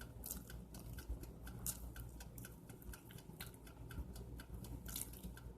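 Steady, even ticking, about four ticks a second, like a clock, over a low steady hum.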